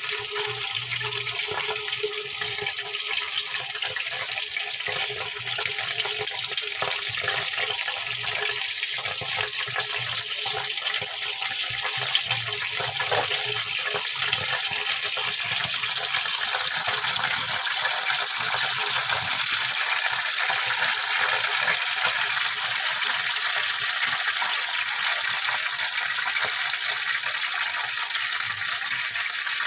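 Bacon strips sizzling in hot, bubbling fat in a nonstick frying pan: a steady hiss with scattered crackles and pops, busiest about a third of the way through.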